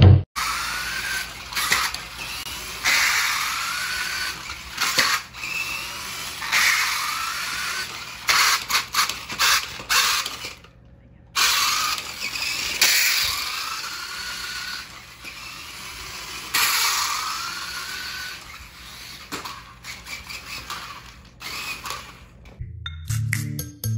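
New Bright toy monster truck's electric motor and plastic gears whining in repeated runs of a few seconds, each rising in pitch as it speeds up, with clusters of clicking rattles in between.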